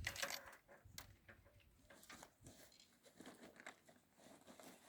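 Near silence broken by faint, scattered small clicks and crinkles, as of cable and small tools being handled.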